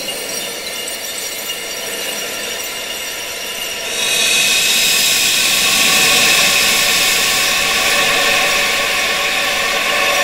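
Wind sound for tinnitus relief: a steady rushing hiss laced with many held tones. It swells louder and brighter about four seconds in.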